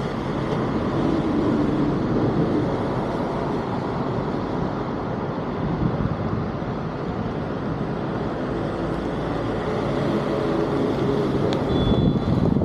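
Floodwater rushing steadily through a cleared culvert drain. Near the end there is a click and a brief high tone.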